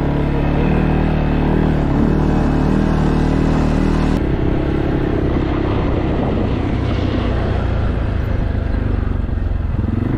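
ATV engine running steadily while the machine is ridden uphill, its note shifting about four seconds in.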